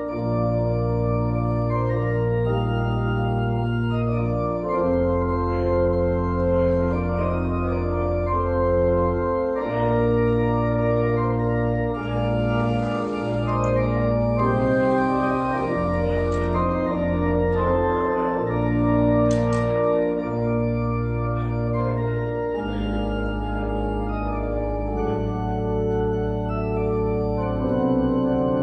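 Church organ playing the postlude: sustained chords over held bass notes that change every few seconds.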